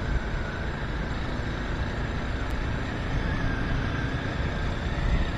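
Steady road and wind noise from a moving vehicle travelling at speed, a low even rumble with hiss over it.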